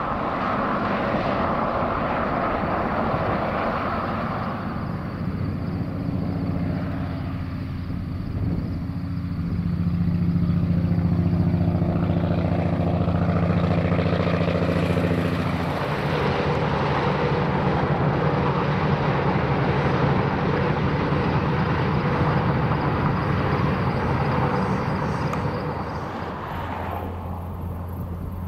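Diesel cattle truck (a long-nose semi tractor pulling a livestock trailer) approaching and going by on a highway: a steady engine drone grows louder and peaks about halfway through, then gives way to an even rush of tyre and wind noise that slowly fades. Near the end it changes to a low steady hum.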